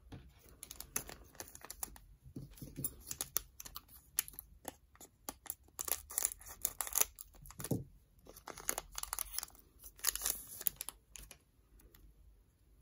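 A foil Yu-Gi-Oh! booster pack crinkling in the hands and being snipped open with scissors: a long run of crackles and clicks that dies away near the end.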